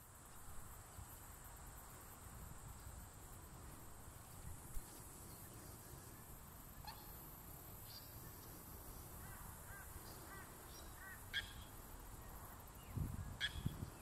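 Faint bush ambience: a steady high insect buzz, with scattered short chirps from small birds in the second half and a few low thumps near the end.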